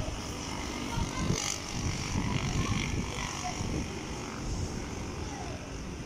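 Distant Airbus A380's four jet engines running as it taxis slowly along the runway, a steady far-off rumble and hiss, with wind buffeting the microphone in uneven low gusts.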